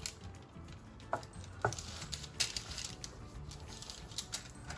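Soft background music with a few light taps and rustles of dough and parchment paper being handled on a baking tray.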